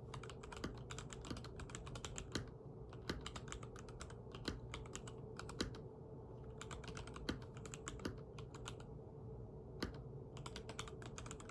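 Typing on a stock Mojo68 mechanical keyboard with TTC Gold Pink linear switches: rapid key clacks in bursts with short pauses, and a louder single keystroke about every second.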